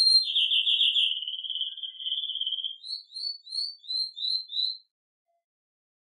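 Domestic canary singing: a fast, buzzy trill that sinks slightly in pitch, then six quick swooping notes, with the song cutting off abruptly about a second before the end.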